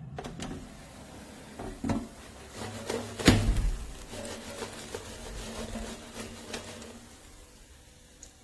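A series of clicks and knocks, with one loud thump about three seconds in, from the air fryer being handled.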